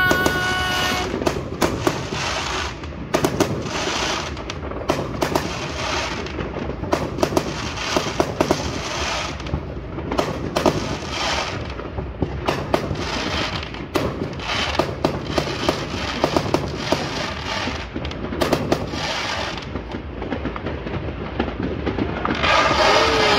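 Fireworks going off one after another: a steady run of sharp bangs and crackling, often several a second, with louder booms standing out.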